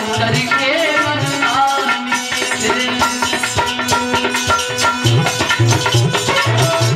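Indian devotional folk music: a melody over a hand drum in the tabla or dholak family, with repeated deep drum strokes.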